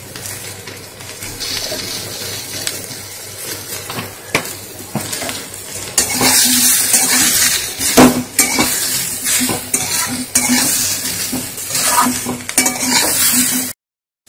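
Cauliflower and potato pieces frying in mustard oil in a metal kadai, with a steady sizzle. From about six seconds in, a metal spatula stirs them, scraping and clattering against the pan, and the sizzle grows louder. The sound cuts off suddenly just before the end.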